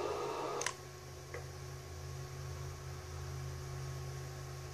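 Hiss from a CB radio cut off by a sharp click under a second in as the microphone is keyed to transmit, leaving a steady low electrical hum with a faint whine.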